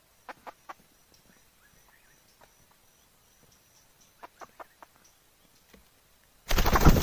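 Female red junglefowl clucking: a quick run of three short notes, then four more a few seconds later. It is a hen's mating call, used as a lure to draw in wild cocks. Near the end a loud, harsh noise cuts in abruptly.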